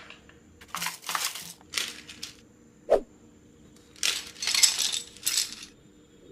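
Small hard parts of a hot-swap mechanical keyboard clattering in several short bursts, with one sharp click about three seconds in.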